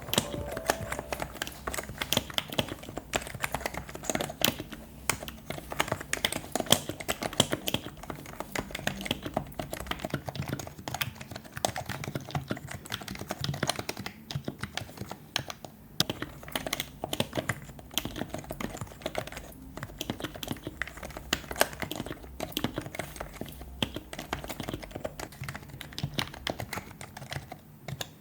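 Typing on a Happy Hacking Keyboard with Topre electro-capacitive rubber-dome switches: a fast, continuous stream of keystrokes with a few brief pauses.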